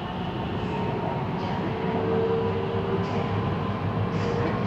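Siemens Inspiro metro train running on the line, heard from inside the carriage: an even rumble of wheels and running gear with a steady humming tone.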